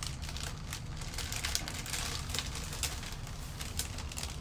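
Clear plastic bag crinkling and crackling in short, irregular clicks as it is handled and pulled off a shipped plant.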